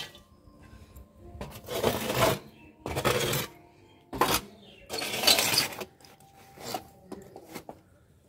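A thin metal sheet scraping up ash and grit from a mud stove and the concrete floor in about six rough strokes, the loudest about two and five seconds in, with bangles jingling on the moving wrist.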